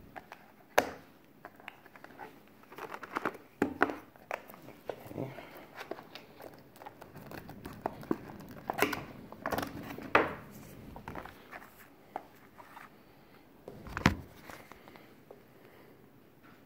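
Handling noise from unboxing a phone: crinkling of the clear plastic sleeve around the phone, with scattered taps and knocks of the box and phone against a wooden table. The loudest knocks come about a second in, about ten seconds in and about fourteen seconds in.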